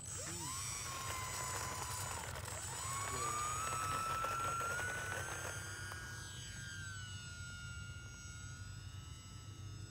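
E-flite UMX Turbo Timber RC plane's electric motor and propeller whining at takeoff power. The pitch rises just after the start, dips briefly, then climbs higher and holds steady as the plane leaves the ground.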